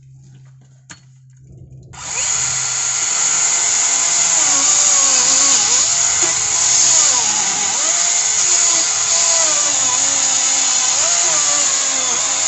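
DeWalt FlexVolt battery chainsaw with a 20-inch bar cutting into frozen fir, starting suddenly about two seconds in. Its motor pitch sags and recovers several times as it bogs under the load, but the chain keeps cutting.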